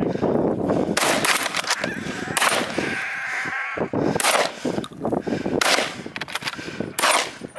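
A volley of gunshots at game: about six sharp cracks fired in quick, uneven succession at running wild boar.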